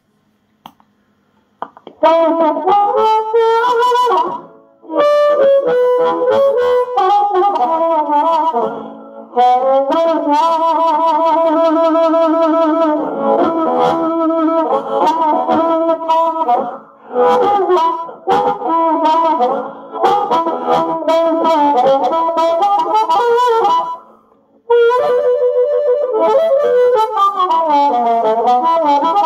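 Blues harmonica amplified through a 1957 Silvertone 1430 Meteor, a 3-watt amp with a 6-inch speaker, fed through an MXR Carbon Copy analog delay for an echoing amplified-harp tone. It starts about two seconds in and plays in phrases with a few short pauses between them.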